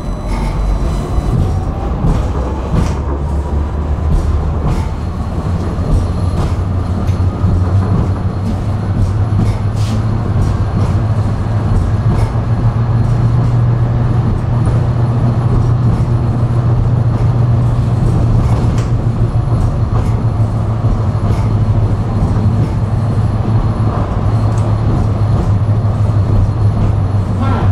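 Electric tram under way on its rails: a steady running rumble with a deep hum. A motor whine rises in pitch over the first few seconds as the tram picks up speed, then holds, and the wheels click now and then over the track.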